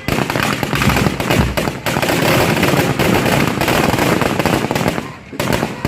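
Fireworks going off in a rapid, dense barrage of sharp bangs and crackles, easing briefly a little after five seconds in.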